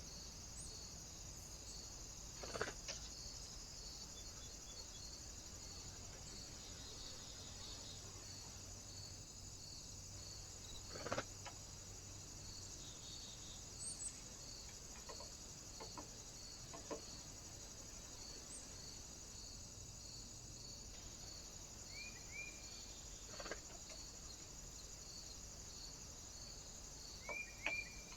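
Trail camera recording of steady electronic hiss with a faint regular pulse, broken by a few sharp taps, loudest near the start and about eleven seconds in. A bird gives two short chirps near the end.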